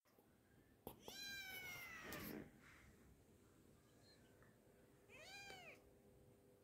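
Kitten meowing twice: a long meow falling slightly in pitch about a second in, then a shorter rising-and-falling meow near the end.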